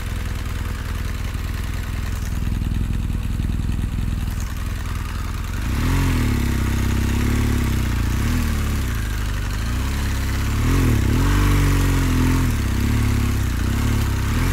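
Motorcycle engine running at low, steady revs. About six seconds in it gets louder, and the revs rise and fall again and again as the throttle is worked through mud.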